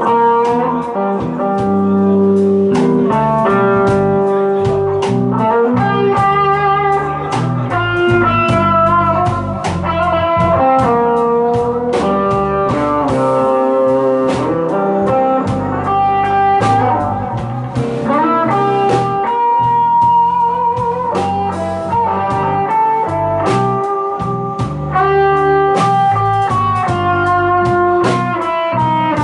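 Live blues band playing an instrumental break, with lead guitar lines over bass and drums.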